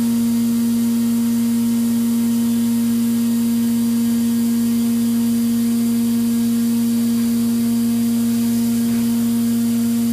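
CNC vertical milling machine's spindle driving an end mill across a flat metal plate: a steady machine hum with one strong held tone over an even hiss.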